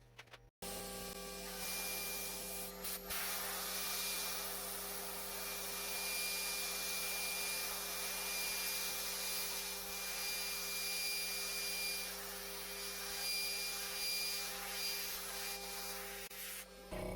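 A power tool working walnut: a steady hiss with a faint high whine, which starts abruptly about half a second in and cuts off near the end.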